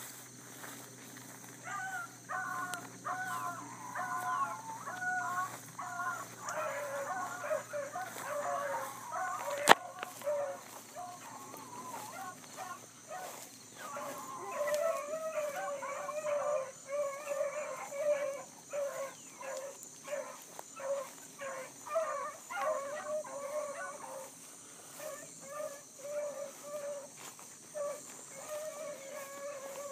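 Bluetick coonhounds baying over and over in short repeated calls while running a rabbit's track, the pack in full cry on the scent. A sharp click about ten seconds in.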